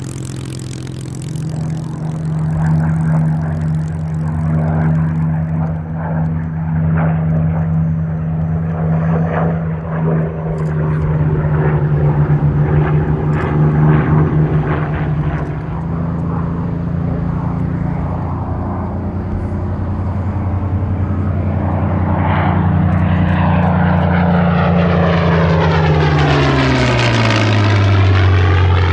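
Supermarine Spitfire's Rolls-Royce Merlin V12 engine running steadily. Near the end the aircraft passes close by and its engine note drops in pitch as it goes past.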